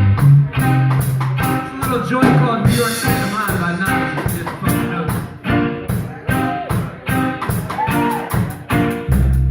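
Live instrumental rock band playing: a steady drum beat with hi-hat, bass, and an electric guitar lead with string bends.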